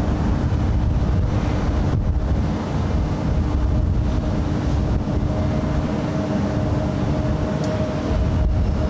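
Steady low rumble of gusty wind on the microphone, with the distant steady hum of a Boeing 747's jet engines at taxi power; a second, higher hum joins about halfway through.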